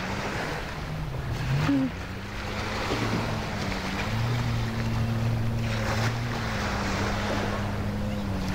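A motor engine running steadily, its pitch dipping and rising again a couple of times, over a hiss of surf and wind.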